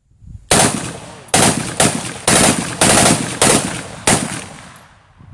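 Short-barrelled M16 with a 7-inch barrel firing a full-auto burst, heard slowed down: about eight loud shots roughly half a second apart, each a sharp crack trailing off.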